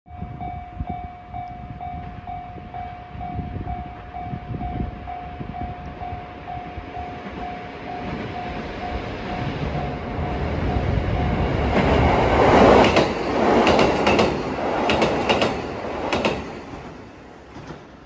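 Level-crossing warning bell dinging in a steady pulse of about three beats a second as a Limited Express Hida diesel train approaches. About two-thirds of the way in, the train passes close by, loud for about five seconds, its wheels clacking over the rail joints, then fades as it moves off.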